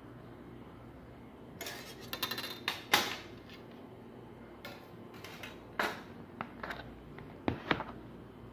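Irregular clatter of short clicks, knocks and clinks, starting about a second and a half in and coming in scattered clusters, the loudest knock about three seconds in.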